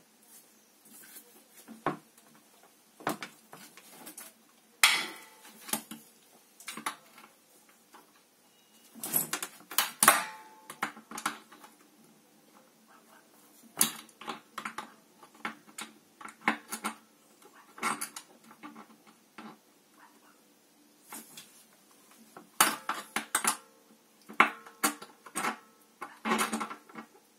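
A metal hand tool clicking and clinking against the bolts of an Atlantic 50-litre electric water heater's flange as the flange is unbolted. The clicks come in irregular runs, some with a brief metallic ring.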